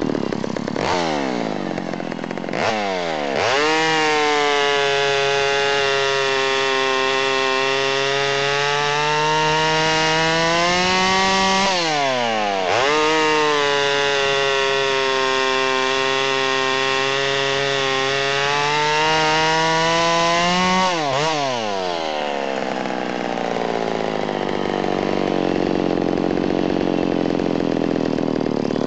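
Vintage McCulloch SP-125/101B two-stroke chainsaw with a .068" oversize bore, revved up and run at full throttle through a log in two long cuts with a brief rev between them. The engine pitch sags under load and climbs again as each cut eases. After about 21 seconds the saw drops back to idle.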